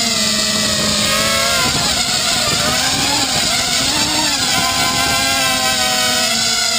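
Small FPV250 quadcopter's four 2400Kv brushless motors and propellers running, picked up by the camera on board. The pitch wavers and splits into several tones from about a second in as the motor speeds shift while the quad turns, then settles back to a steady hum near the end.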